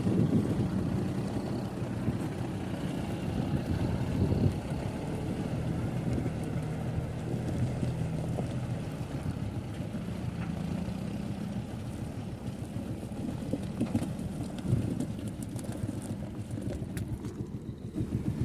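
Heavy diesel vehicle engine running steadily, a low hum that eases off in the second half, with wind noise on the microphone.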